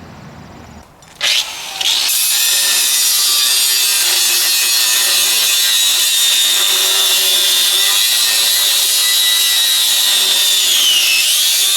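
Angle grinder grinding steel on a backhoe bucket. It starts sharply about a second in, then runs as a steady loud hiss with a high whine whose pitch sags briefly near the end.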